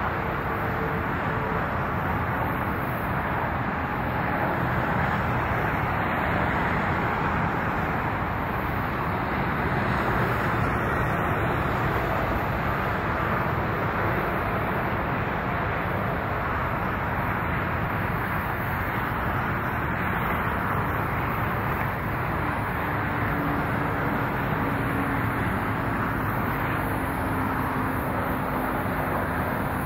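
Steady, unbroken vehicle noise at an even level, with a faint low hum coming in near the end and sliding slightly lower.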